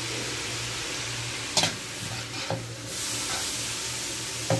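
Shredded cabbage, carrot and green beans sizzling in a hot wok as a slotted metal spatula tosses them, half-cooking the vegetables. The spatula clacks sharply against the pan three times: about a second and a half in, about two and a half seconds in, and near the end.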